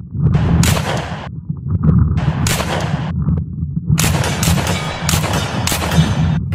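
Gunfire sound effects: two bursts of shots in the first three seconds, then a faster volley of about six shots, over a low steady rumble.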